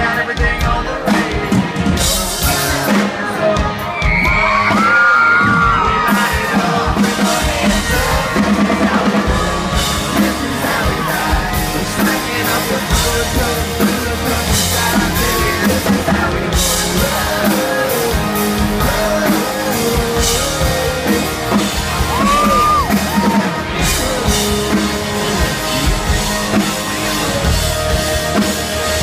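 Live band playing a country-rock song, with a voice singing over it.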